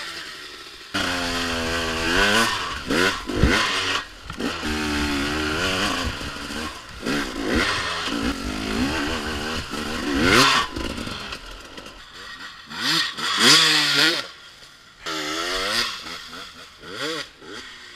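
Dirt-bike engines revving hard, their pitch climbing and dropping again and again as the riders open and close the throttle. The sound breaks off abruptly several times between short clips.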